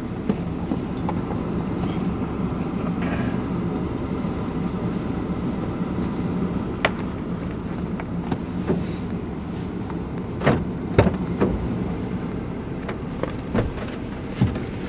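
A vehicle running, with a steady low hum and rumble. Several sharp clicks and knocks come in the second half.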